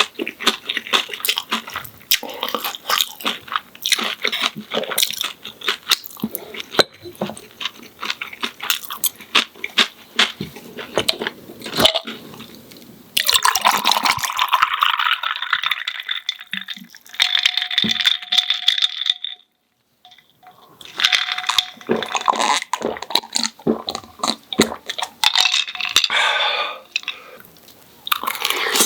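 Close-miked crunching and chewing of a crisp, breaded fried pork cutlet: a dense run of crackling bites and chews. The sound cuts out completely for about a second roughly two-thirds of the way through.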